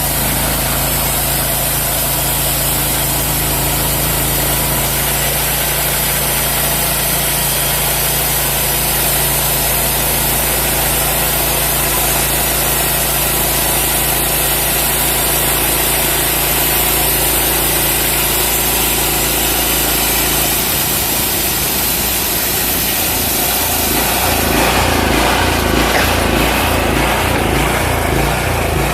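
Engine of a homemade portable bandsaw mill running steadily. About twenty seconds in, its steady hum turns uneven and pulsing, and a few seconds later it gets a little louder.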